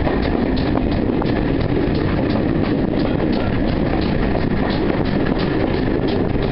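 Steam-hauled train running, heard from a carriage window: the locomotive's exhaust beats, about three a second, over the steady rumble of the train and the wind.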